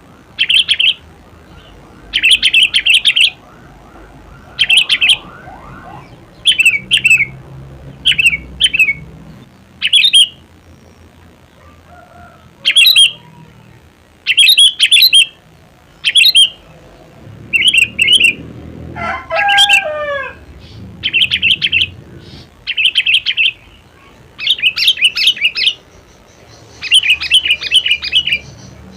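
Sooty-headed bulbul (kutilang) singing, with short bright phrases repeated every second or two. About two-thirds in comes a lower series of notes falling in pitch.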